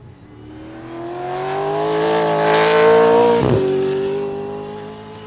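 Supercars V8 race car accelerating past, its engine note rising in pitch and swelling in loudness. About three and a half seconds in the pitch drops sharply, and the car then fades away.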